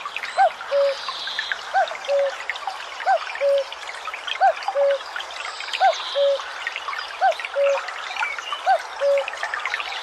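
Male common cuckoo calling its two-note "cuck-oo", a higher note falling to a lower one, repeated at an even, metronomic pace about every second and a half, seven times. Under it a stream babbles steadily, and other small birds chirp.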